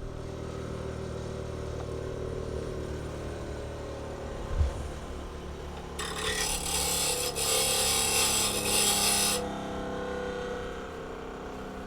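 Grinder running with its grinding wheel out of balance, a rumbly steady hum. From about six seconds in to about nine and a half, a harsh grinding hiss as metal is held against the wheel.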